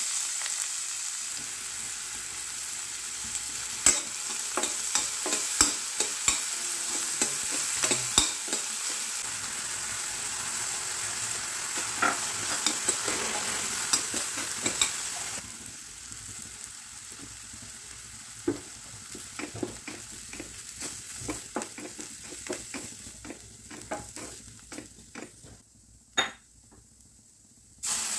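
Chopped onion sizzling in hot oil in a stainless steel pan while a spoon stirs and scrapes it. The sizzle drops away about halfway through, leaving quieter frying and the spoon's scrapes and taps against the pan, with one louder clack near the end.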